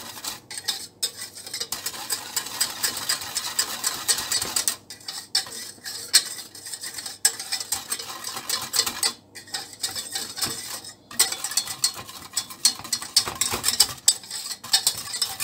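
Metal wire whisk beating milk and chocolate sauce powder in a stainless steel pot, its wires scraping and clinking rapidly against the pot's sides and bottom, with a few brief pauses.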